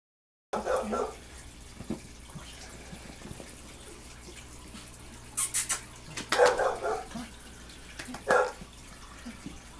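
Hands clapping in quick sets, calling a bull terrier puppy back with its toy, with a few short voice-like calls between the claps.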